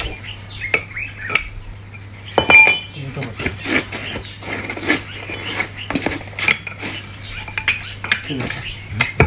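Steel parts and tools of a center pivot gearbox clinking and knocking irregularly as the gearbox is reassembled, with a sharp ringing metal clink about two and a half seconds in.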